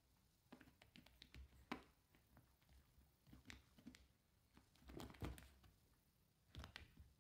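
Faint, irregular taps and scratches of a cat's paw and claws on a tablet's touchscreen, with a few sharper taps about two seconds in and around five seconds.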